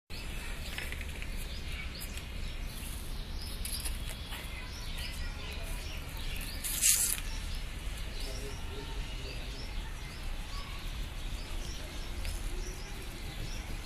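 Small birds chirping repeatedly over a steady low outdoor rumble, with one sharp slap about seven seconds in as a vacuum cleaner's cloth filter is struck against a concrete wall to knock the dust out.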